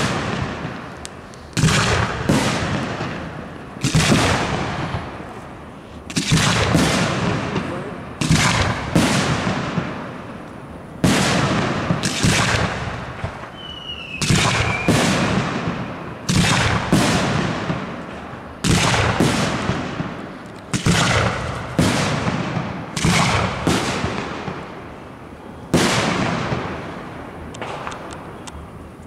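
Aerial firework shells bursting overhead, with a loud bang about every one to two seconds, each trailing off in a long echo. A short whistle sounds about halfway through.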